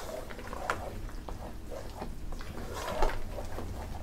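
Wooden spoon stirring thick mashed potatoes in a pot: soft, irregular squelching with light knocks of the spoon against the pot, the loudest about three seconds in.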